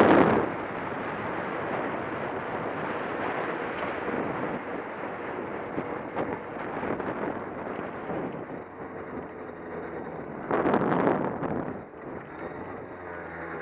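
Wind noise rushing over the microphone of a moving Derbi Xtreme moped, with the moped's engine running underneath. It swells louder twice: at the start and again about eleven seconds in.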